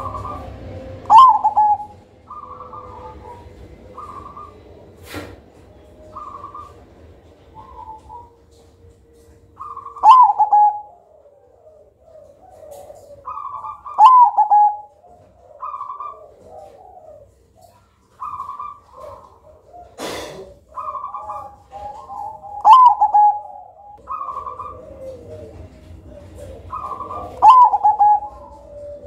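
Zebra dove (perkutut) cooing: about five loud song phrases with a falling pitch, several seconds apart, with softer short coo notes in between. A brief burst of noise comes about two-thirds of the way through.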